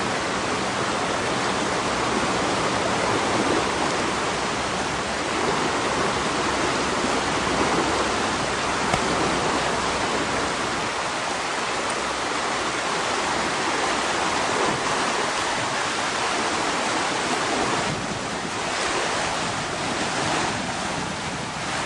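Rushing floodwater: a steady, even rush of fast-moving water.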